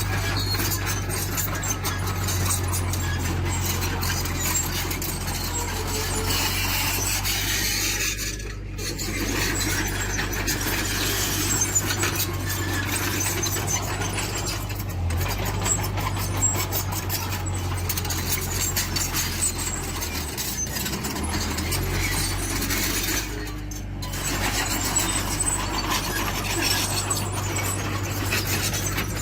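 A tracked earthmoving machine at work: its diesel engine runs steadily under the squealing and clattering of its steel tracks, easing off briefly twice.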